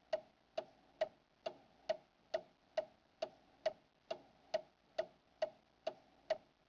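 A clock ticking steadily, about fifteen evenly spaced ticks at a little over two a second.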